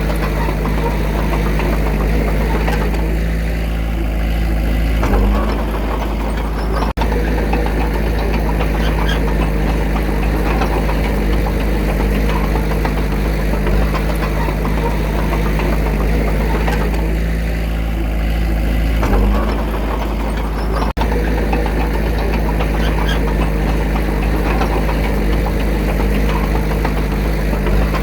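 Diesel engine of a small Komatsu D21A bulldozer running steadily while working. The engine eases off and then picks up again about five seconds in, and again near twenty seconds.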